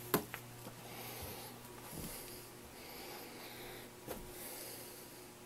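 A cat scrambling and leaping at a bedspread on carpet: faint rustling and a few soft knocks, one just after the start and another about four seconds in, over a low steady hum.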